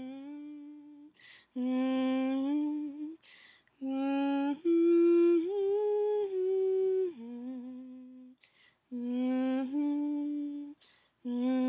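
A person humming a slow, wordless original melody in phrases of a few seconds each, with a quick breath between phrases.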